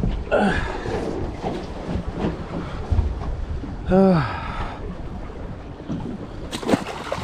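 Wind on the microphone with sea and boat noise on a small boat offshore. About four seconds in comes a brief rising-and-falling voice-like sound.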